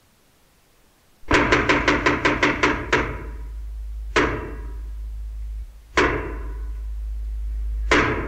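Intro sound design of percussive hits: after about a second of near silence, a fast run of about nine sharp hits, then three single hits about two seconds apart, each ringing briefly, over a steady low rumble.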